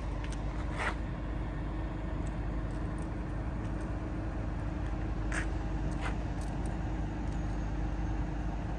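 Steady low rumble and hum of a running transit vehicle, with a few sharp clicks.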